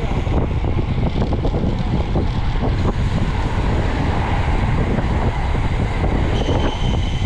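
Wind buffeting the microphone of a camera carried on a moving bicycle: a loud, steady, uneven rumble. A faint high, steady whistle comes in about six seconds in.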